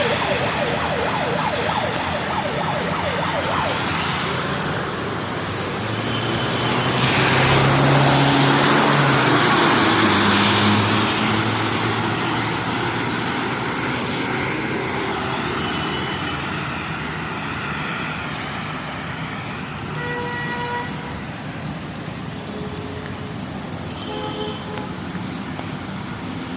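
Road traffic in heavy rain: a steady hiss of rain and wet tyres, with a vehicle passing louder about eight to eleven seconds in. A couple of short tones sound near the end.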